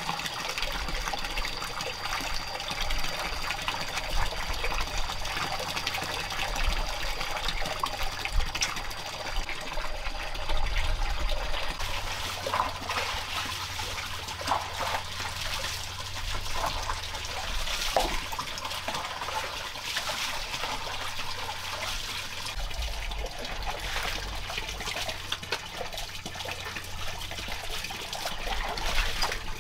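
Water running and trickling steadily, with frequent small clicks and knocks. A thin, steady high tone sounds along with it and stops about a third of the way through.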